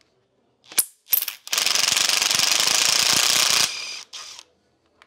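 Cordless impact driver unscrewing a brake caliper bolt on an electric scooter's front wheel: two short blips, then a steady rattling run of about two seconds, and a brief softer burst after it.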